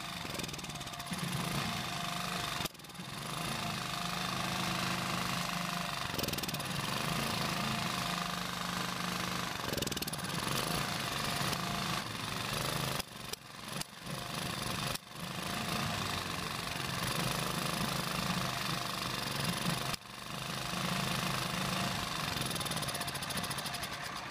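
A 154F 2.8 hp single-cylinder four-stroke generator engine running unevenly, stumbling and dipping several times as its choke is opened, and spitting back through the carburetor. This is the carburetor backfire and stall-off-choke of a fuel problem after long storage.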